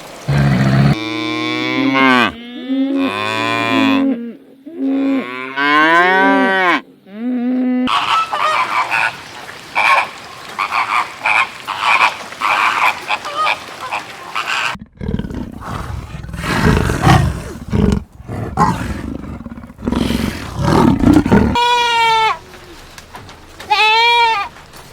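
A run of farm animal calls one after another: drawn-out moos with a wavering pitch in the first third, then other animal noises, a stretch of low, rough pulsing sound, and a few short, high goat bleats near the end.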